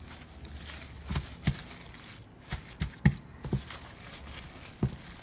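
Hands pressing and patting a mass of pine-nut barfi dough through plastic cling film on a stone countertop: scattered soft thumps at irregular intervals, with light crinkling of the film.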